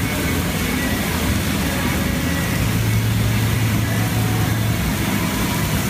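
Steady low hum under an even hiss, with faint voices in the background.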